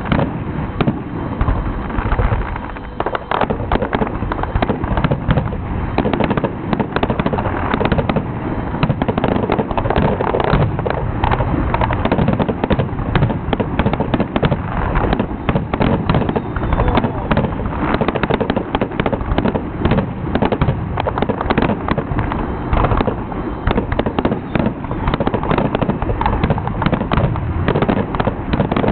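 Fireworks finale: aerial shells bursting in a rapid, unbroken barrage of bangs and crackling.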